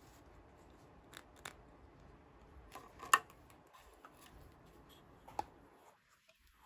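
A few short, sharp clicks and taps from small toy pieces being handled, the loudest about three seconds in.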